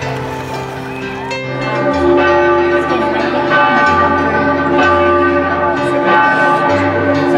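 Instrumental background music of sustained chords over a bass line that changes note every second or so, with bell-like tones ringing through it. It grows louder about a second and a half in.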